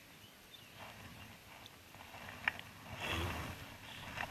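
Faint rustling and handling noise of clothing brushing against a body-worn camera while a fish is landed. There is a sharp click about two and a half seconds in, and the rustling grows louder in the last second or so.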